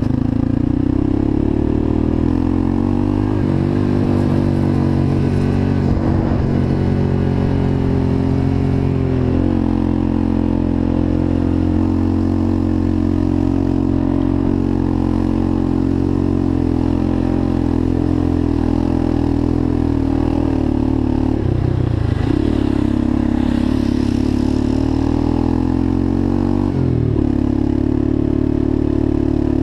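Motorcycle engine running steadily, its pitch drifting slowly up and down, with a few brief shifts in speed partway through.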